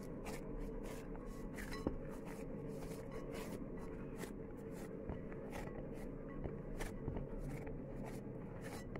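Hands kneading soft pizza dough in a bowl: irregular soft slaps and squishes of the dough, roughly one or two a second, over a steady low hum.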